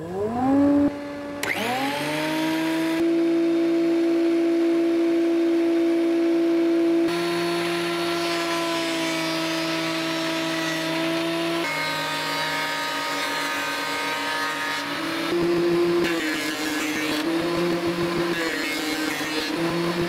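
Ryobi benchtop thickness planer's electric motor and cutter head spinning up with a rising whine when switched on, then running at a steady high pitch. In the last few seconds the pitch dips and wavers as the planer cuts a wooden board under load.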